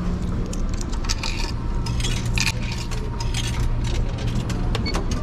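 Scattered light clinks and clatter of dishes and cutlery, over a steady low hum from the ship.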